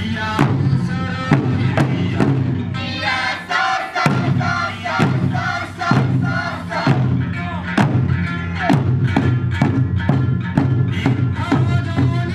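Okinawan eisa: a group of large barrel drums (ōdaiko) struck together in a steady beat over an eisa song with music, with shouted calls from the dancers.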